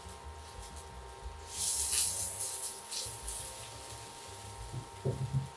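Spatula stirring and scraping food around a frying pan, with the hiss of frying; the strokes come in uneven bursts, the loudest about two seconds in.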